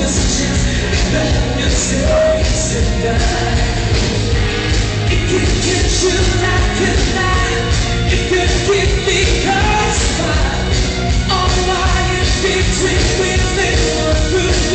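Loud rock music with a singing voice over a steady drum beat.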